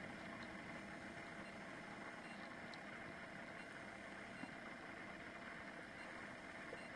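Faint, steady hum and hiss of room tone, with no distinct events.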